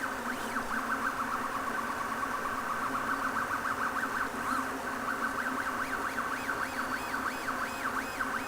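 Stepper motors of a MendelMax 1.5 3D printer whining as the axes move. The pitch slides up and down over and over with the quick back-and-forth moves, over a steady hum.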